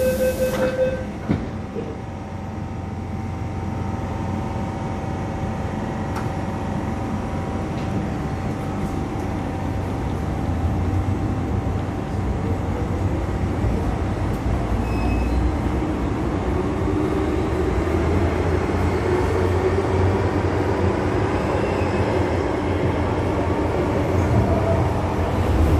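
MTR M-Train electric metro car: the door-closing warning beeps end just after the start and the doors shut with a knock about a second in, then the train pulls away. Through the rest, the low rumble of the wheels in the tunnel rises, with a motor whine that climbs slowly in pitch as the train gathers speed.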